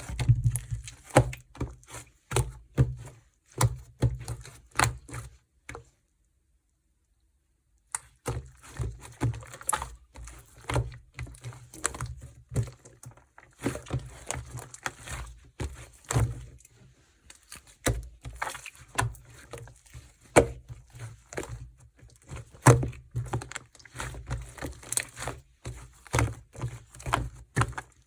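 Black mixed slime being kneaded and pressed by hand: a steady stream of sticky clicks and small pops from trapped air, with soft thuds. The sound drops out completely for about two seconds around six seconds in.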